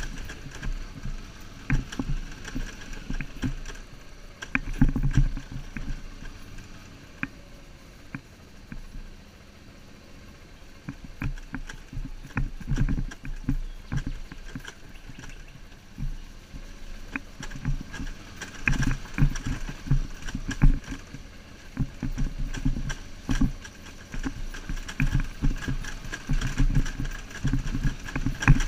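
BMW R1150GS boxer-twin engine running at low speed, with frequent rattles and knocks as the motorcycle rides over a rocky dirt track. The knocking eases off for a few seconds partway through.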